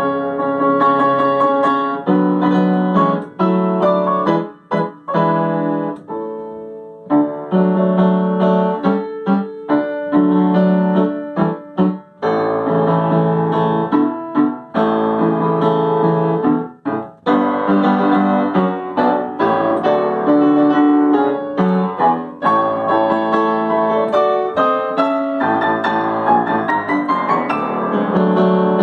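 Solo Yamaha upright acoustic piano played in a continuous run of notes and chords, with a few brief pauses.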